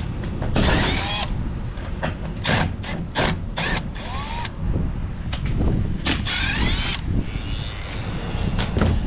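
Cordless drill-driver spinning in several short runs, each with a whine that rises and falls, over a steady low rumble.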